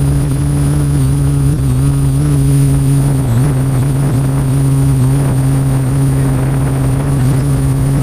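Parrot quadcopter drone's electric motors and propellers running at a steady hover hum, with a high thin whine over it and small dips and wobbles in pitch as the motors adjust.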